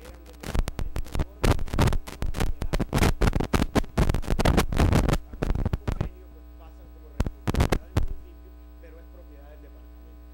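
Steady electrical mains hum on the recording, broken by loud, dense crackling and popping for the first six seconds and again briefly around seven to eight seconds, then hum alone.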